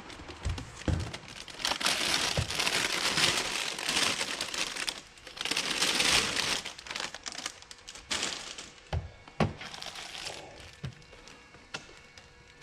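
Thin clear plastic bag crinkling and rustling as a welding helmet is unwrapped from it, in two long stretches over the first seven seconds or so, followed by a few sharp knocks of handling.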